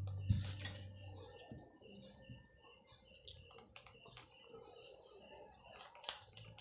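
Close-up eating sounds of a man eating rice and noodles with his hands: a knock near the start as the soup bowl is set down, then many small wet clicks and smacks of chewing and mouthfuls, with one louder sharp click about six seconds in.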